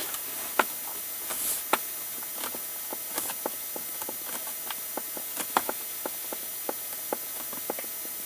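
Hyundai i30 plastic dashboard panel squeaking and ticking: short, irregular clicks, sometimes a few in quick succession, over a steady background hiss. These are the annoying dashboard rattles heard when driving.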